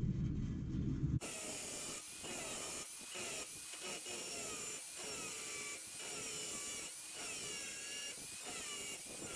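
A power tool cutting the corners off a steel sheet, running with a shifting, gliding whine and regular short dips as it bites into the metal. A low rumble comes before it and cuts off abruptly about a second in.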